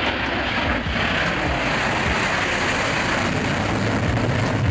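Steady jet noise from a Tupolev Tu-160 bomber's afterburning engines as it climbs away on takeoff.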